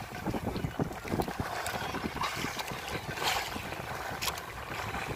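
Wind buffeting the microphone over choppy sea water splashing and lapping against a boat, with a louder splash about three seconds in.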